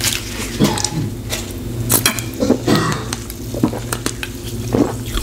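Close-miked eating and drinking sounds: a paper napkin wiped across the mouth, then sips and swallows of Diet Coke from a plastic bottle, with scattered small clicks and crackles.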